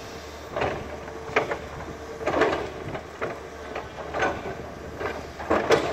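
Tracked excavator working: its engine hums steadily under irregular scrapes and knocks, about six of them, as the bucket pushes and shifts large rock blocks into a retaining wall.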